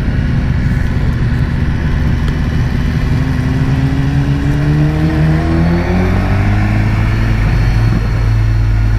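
BMW S1000R's inline-four engine running in second gear, its pitch rising steadily as the bike accelerates out of a hairpin, then holding steady.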